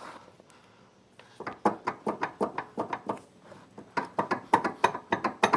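A rapid series of metallic clanks and knocks, several a second, from the Can-Am Outlander's broken rear drive shaft being worked by hand. The loose parts rattle where the shaft's bearing has been destroyed. The knocking starts about a second and a half in and pauses briefly in the middle.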